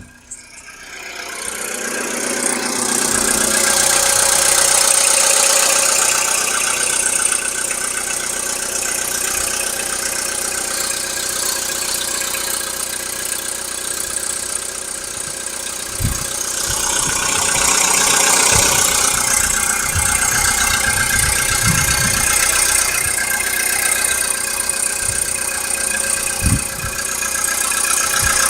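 A 2012 VW Polo Sedan's 1.6-litre four-cylinder petrol engine idling steadily while still cold, with the cold-engine knock the owner records it for. A few short dull bumps come through in the second half.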